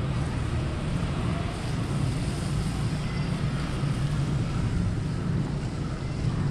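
Steady low rumble of outdoor city ambience with no distinct events.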